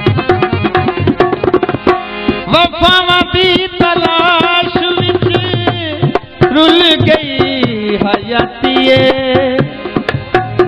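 Tabla playing with a melodic accompaniment in a live Punjabi folk song, an interlude between sung verses. The melody lines waver and slide, and there are steady drum strokes throughout.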